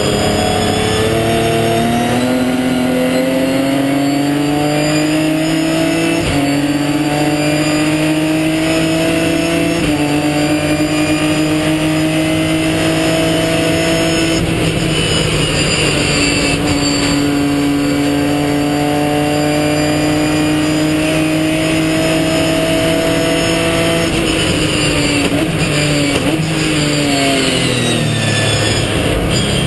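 Ginetta G50 race car's V6 engine heard onboard, pulling hard up through the gears with upshifts about 6 and 10 seconds in. It then lifts around the middle, accelerates again, and falls through several downshifts under braking near the end before picking up once more.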